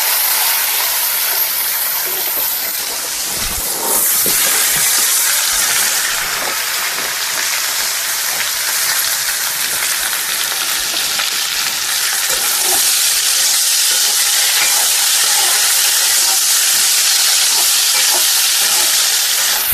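Cut potato pieces frying in hot oil in an iron kadhai: a loud, steady sizzle that grows a little louder about four seconds in.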